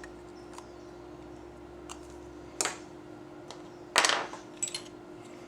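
Small metal lock parts and tools clicking and clinking as a pin tumbler lock is taken apart, with two louder clinks about two and a half and four seconds in. A faint steady hum runs underneath.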